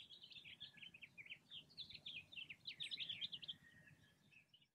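Birds chirping: many quick, high chirps overlapping, faint, fading out near the end.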